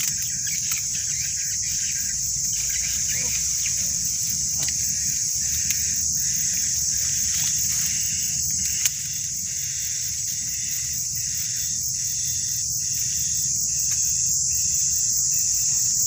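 Insects buzzing steadily and high-pitched in the surrounding vegetation, with a second insect chirping in a regular pulse from about the middle on. A few sharp snaps and rustles of branches and leaves from climbing through the tree, the loudest about nine seconds in.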